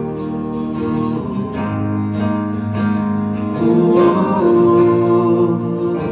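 Live acoustic country band playing: two strummed acoustic guitars over keyboard and upright bass, with held melody notes that bend in pitch about four seconds in.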